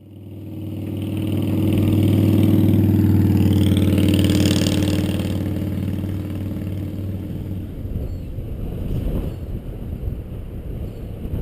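A vehicle engine going past close by: a steady low hum that swells, holds, then fades after about five seconds into a rougher rumble.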